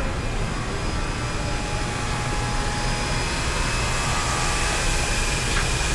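Tube cutting machine running through its cut cycle: a steady mechanical drone and hiss with several constant tones. Open trade-show hall noise is mixed in.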